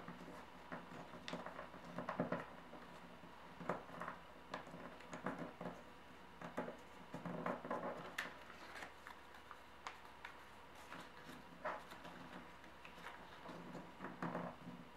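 A sheet of origami paper being folded and creased by hand: faint, irregular rustles and crinkles with small taps as the folds are pressed flat. A steady hum runs underneath.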